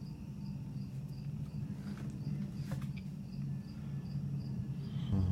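Hampton Bay Landmark ceiling fan motor humming steadily as the fan turns slowly, with a faint high tick repeating about three times a second. The slow turning on the high setting is shown as the symptom of a bad capacitor, but the fan's remote is actually set to low.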